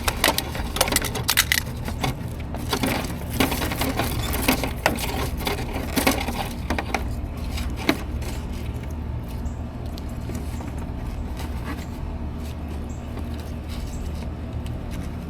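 Rustling, scraping and small clicks of insulated wires and plastic parts being handled and pulled as an old spa controller's wiring is worked free, busiest in the first eight seconds and thinning out after, over a steady low hum.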